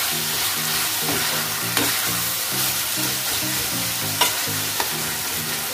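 Onion, tomato and ground-spice masala sizzling as it fries in a wok while a spatula stirs and mixes it, with a few sharp knocks and scrapes of the spatula against the pan.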